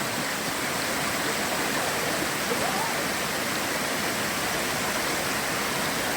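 Steady rush of a waterfall in full winter flow, heard from close by at its base: an even, unbroken roar of falling water.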